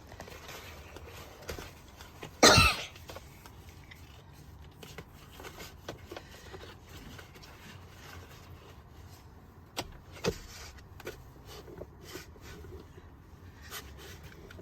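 Handling noise from a car seatbelt being worked through an infant car seat base: faint scattered rustling, one loud short burst about two and a half seconds in, and two sharp clicks around the ten-second mark.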